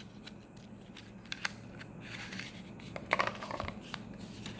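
Small packaging items from an earbuds box being handled: scattered light clicks and short plastic-and-paper rustles, the busiest stretch about three seconds in.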